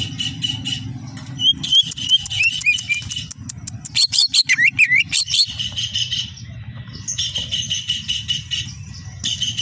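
Greater green leafbird (cucak ijo) singing. Bursts of fast chattering trills are broken by runs of loud, sweeping, falling whistles in the first half, over a low steady background hum.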